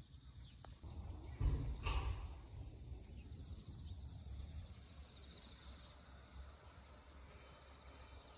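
Faint outdoor ambience, with a short low rumble of handling or wind on the microphone about a second and a half in.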